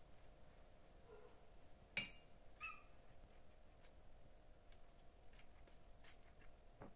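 Near-silent room tone with a faint steady hum. A few short, high, chirpy cat-meow sound effects come in, with a sharp click about two seconds in and another near the end.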